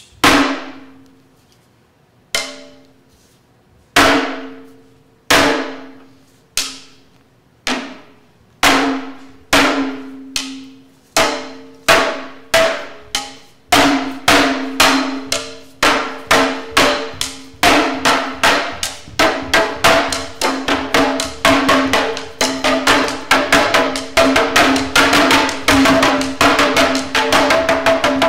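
Japanese fan drum (uchiwa daiko) struck with a stick: single sharp strokes with a short pitched ring, a second or two apart at first, speeding up steadily into a fast, dense run of strokes by the end.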